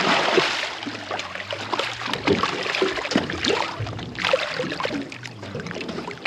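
Water splashing and sloshing against a small boat, with irregular small splashes and drips.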